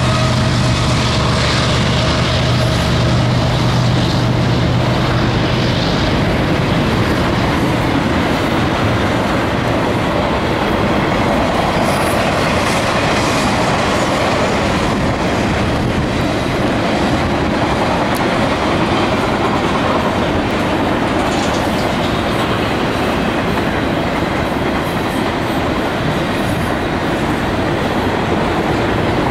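CSX intermodal freight train passing close by. The diesel locomotives' low engine hum dies away about six seconds in, then comes a steady rumble and clickety-clack of the intermodal cars' wheels rolling over the rails.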